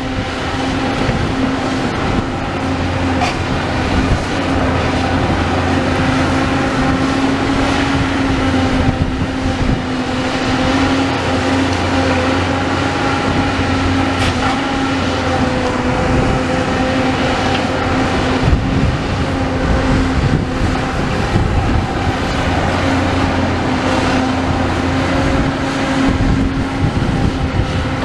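Demolition excavator running, its engine and hydraulics giving a steady droning hum, while the grab works in brick rubble with occasional sharp knocks and crunches of masonry.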